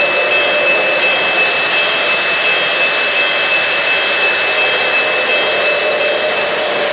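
Steady rolling rumble of O-gauge model freight cars' metal wheels running on three-rail track as the train passes close by, with a steady high whine running through it.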